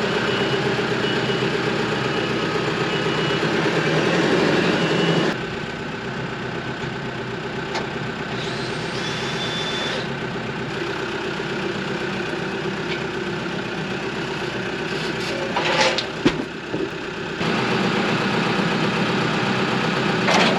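An engine running steadily, with a high beep repeating about twice a second for the first few seconds. The sound changes abruptly about five seconds in and again near the end, with a few sharp knocks shortly before.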